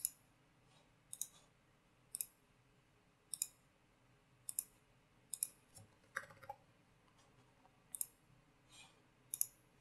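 Computer mouse buttons clicking, faint single clicks and quick double clicks about once a second.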